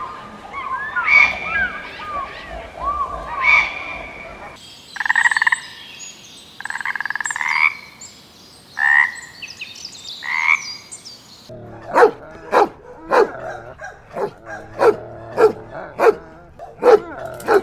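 Animal calls in three back-to-back clips: first a run of short, chirping calls, then several drawn-out calls about a second apart, then a quick series of short calls at about two a second.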